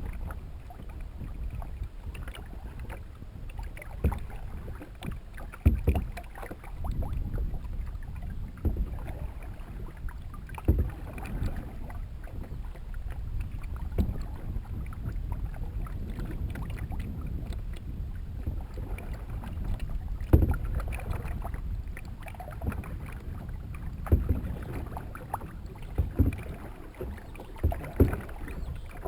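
Canoe being paddled: steady low water and wind rumble, broken by irregular sharp knocks every couple of seconds as the paddle strikes the canoe's hull.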